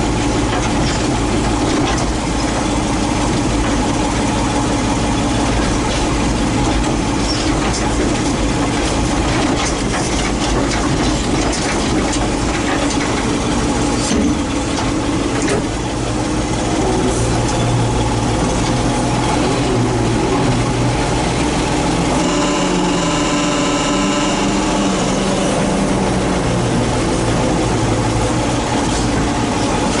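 Engine of a loader tractor running steadily, heard close from the operator's seat. Its note shifts in the second half as the loader is worked to move a log.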